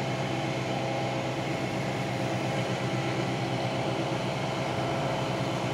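Milling machine running steadily as a half-inch end mill cuts into a bronze crank arm, a constant machine hum with several steady tones.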